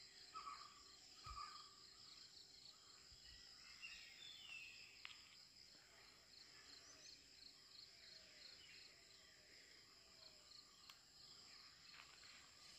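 Faint, steady high-pitched insect chirring with an even pulse, in forest ambience. A few soft bird chirps and falling whistles come and go over it.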